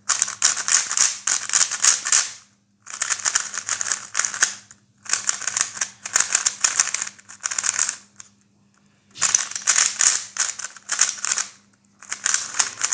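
DaYan GuHong V4 M magnetic 3x3 speed cube turned fast, its plastic layers clacking in flurries of rapid turns. There are five flurries with short pauses between them. The turning is very smooth, with fairly strong magnets.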